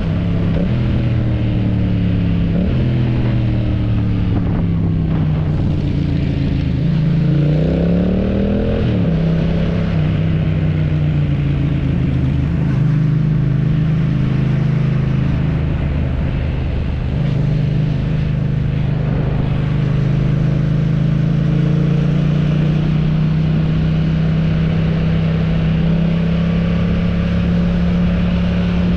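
AI-generated motorcycle engine sound meant as a Yamaha MT-07 being ridden: revs sag over the first several seconds, climb quickly around eight seconds in, then hold fairly steady at a constant pitch for the rest.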